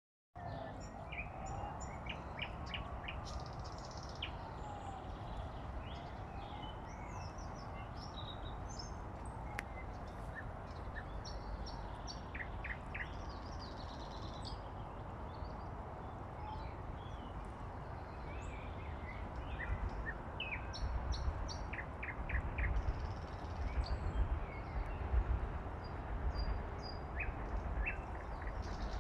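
Small birds chirping and calling again and again over a steady outdoor rumble. In the first half a faint tone slowly rises and falls, and in the second half the low rumble grows louder and gustier.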